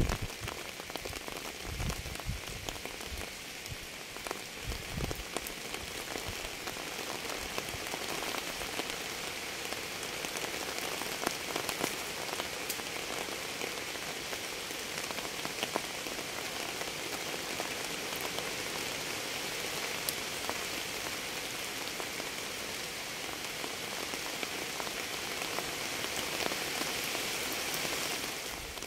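Steady rain falling, an even hiss with scattered sharper drop ticks. A few low thumps come in the first five seconds.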